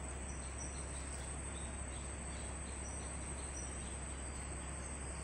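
Steady high-pitched insect chorus from the jungle, a continuous shrill buzz, with a few faint short chirps over it.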